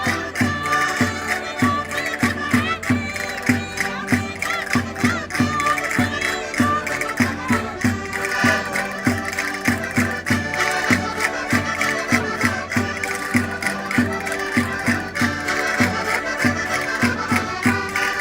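Portuguese concertinas playing a lively traditional Minho folk dance tune, with many held notes over a steady, regular bass-and-chord beat.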